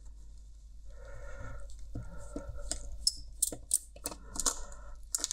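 Small screws being undone from a Bluetooth headphone ear cup: light clicks and scraping of a small screwdriver on metal and plastic, with a few short buzzing runs of under a second.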